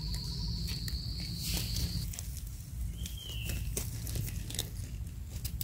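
Dry leaf litter rustling and small clicks from hands and a small knife working mushrooms out of the forest floor. An insect's steady high trill stops about two seconds in, and a short falling whistle sounds about three seconds in.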